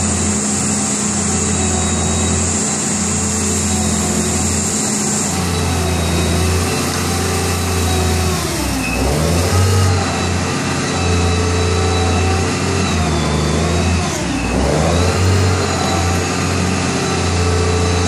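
Crane truck's engine running steadily, its speed dropping and picking back up twice, a little before halfway and again later on. A high steady hiss stops about a third of the way in.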